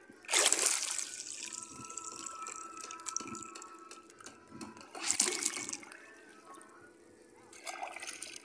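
Water splashing and sloshing in short bursts while a large needlefish is scaled and cleaned in shallow sea water, with two louder splashes just after the start and about five seconds in, and a smaller one near the end.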